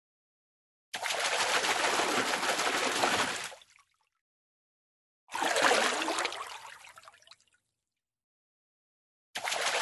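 Fish splashing in water, in separate bursts with silence between them: a splashing burst of about three seconds that cuts off, a second that starts hard and fades away, and a third beginning near the end.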